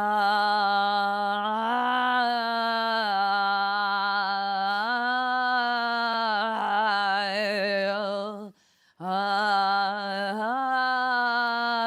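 A woman's voice holding a constant, sustained vocal tone at a steady pitch, stepping up slightly now and then. It breaks off briefly about eight and a half seconds in, then carries on. She presents it as the constant sound that is voiced from the throat without being connected to the rest of the body.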